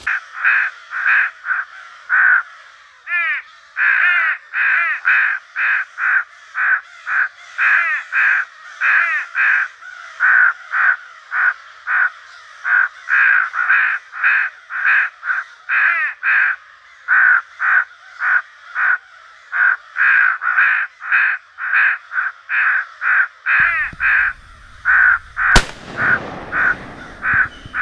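Electronic game caller playing recorded crow calls: harsh, loud caws repeated about twice a second. Near the end a low rumble comes in, with a single sharp crack.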